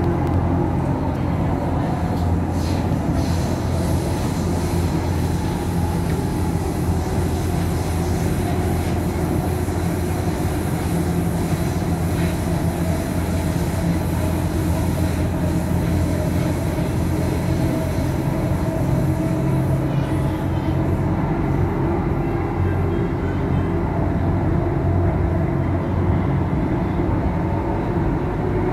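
Delhi Metro Blue Line train heard from inside the carriage while running at speed: a steady rumble of wheels on the rails and running gear.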